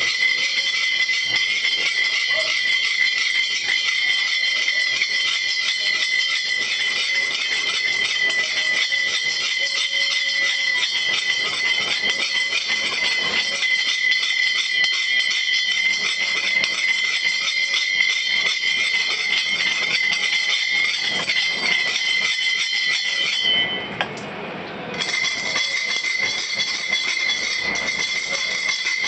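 Hand tool scraping and rattling against an enamelled brass urn as it is turned on its rod: a dense, continuous metallic chatter with a steady high ring. It stops for about a second and a half about three-quarters of the way through, then starts again.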